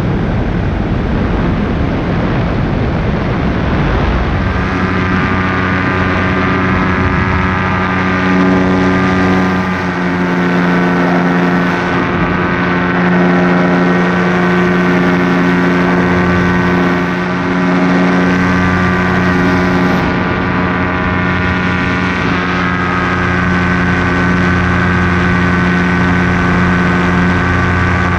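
Paramotor engine and propeller running at a steady pitch. Wind rushes over the microphone for the first few seconds. The engine keeps running and does not cut out.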